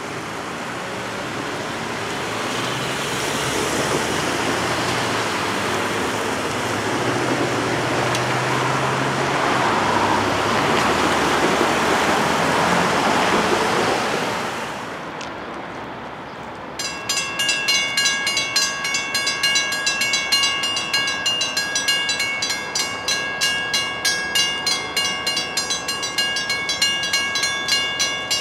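A rushing rumble with a low hum builds and then falls away about fifteen seconds in. Then the crossing's WC Hayes mechanical bells start ringing abruptly, a rapid, even clanging of struck metal gongs, about three strikes a second, as the crossing activates again and the gates come down.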